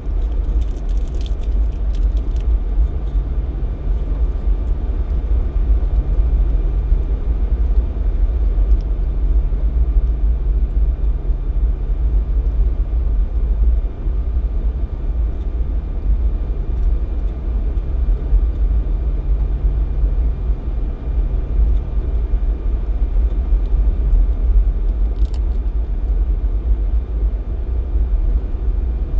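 Jeep Cherokee XJ driving at a steady pace: a continuous low rumble of engine and road noise, with a faint hum that comes and goes through the first two-thirds.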